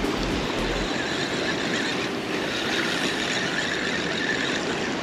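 Steady rushing of North Sea surf and wind, with low wind buffeting on the microphone in the first second. A faint high whine runs through the middle seconds.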